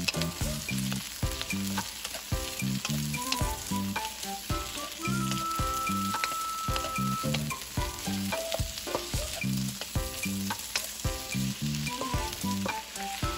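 Sliced onions, bell peppers, tomato and garlic sizzling in a hot wok while a wooden spatula stirs and scrapes them, with frequent light knocks of the spatula against the pan.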